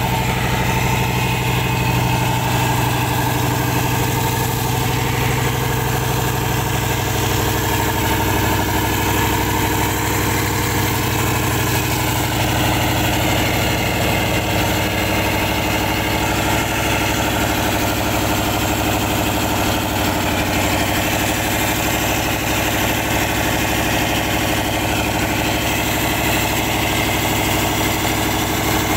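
The sand-suction dredge's deck-mounted engine running steadily, driving the sand pump as it discharges a stream of sand and water.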